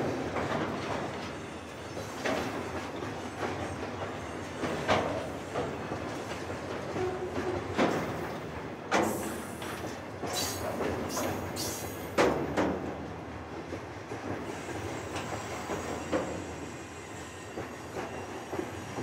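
Loaded freight tank wagons rolling past on the rails, with irregular clanks and knocks from the wheels and couplings. Brief high wheel squeals come around halfway through. The rolling sound eases off near the end as the last wagon goes by.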